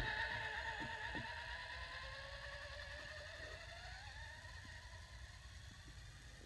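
Traxxas Stampede 4x4 RC monster truck's electric motor and drivetrain whining as it drives away over snow, the whine rising in pitch around the middle and fading with distance.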